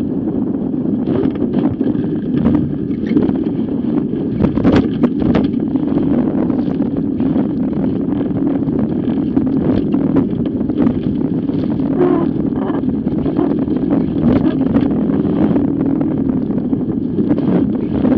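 Strong wind buffeting the microphone of a camera mounted on a Fireball racing dinghy beating upwind, with water rushing past the hull and many sharp slaps of waves and spray against the bow.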